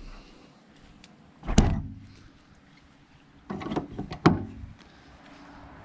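A door slammed shut twice, about a second and a half in and again near the end, each slam followed by a short metallic ring, with a few rattling knocks just before the second.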